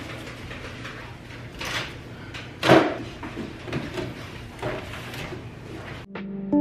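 Knocks and light clatter of plastic brick-built toy models being handled and lifted off a wooden chest, with the loudest knock just under three seconds in. The sound cuts off near the end.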